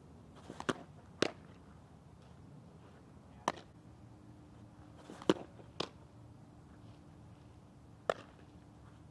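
Softball smacking into leather fielding gloves: pitches popping into the catcher's mitt and the ball being caught back in the pitcher's glove. There are six sharp pops, a pair about a second in, another pair a little past five seconds, and single pops in between.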